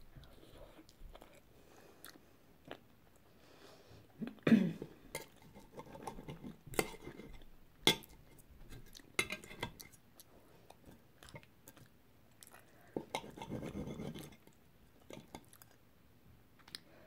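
Metal knife and fork clinking and scraping against a plate as food is cut and picked up, with chewing in between. The loudest moment is a brief burst about four and a half seconds in.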